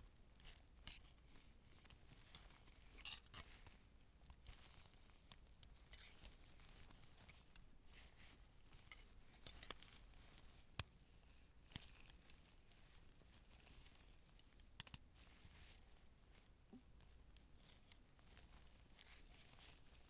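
Faint, scattered clicks, taps and short rustles of surgical-roleplay props being handled, with soft crinkling and small clinks. The sharpest click comes about eleven seconds in, and small clusters of clicks come near one, three, ten and fifteen seconds.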